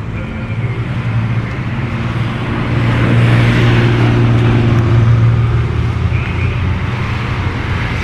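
A motor vehicle's engine hum, growing louder about a third of the way in and easing off after the middle, as if a car or truck is rolling slowly past.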